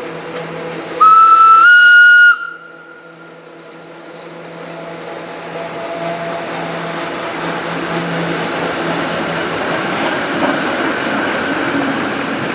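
Electric locomotive FZe 6/6 2002 sounds its whistle once, a single high note about a second long that steps slightly up in pitch. Then the train runs past, and the running noise of the locomotive and freight wagons on the rails grows steadily louder.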